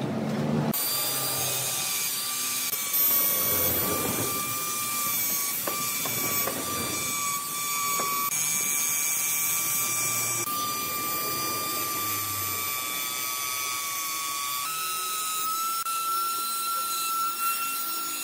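Electric die grinder with a pointed carving bit running at a steady high-pitched whine while it carves into wood, with the rougher noise of the bit cutting underneath. The whine steps up slightly in pitch about three-quarters of the way through.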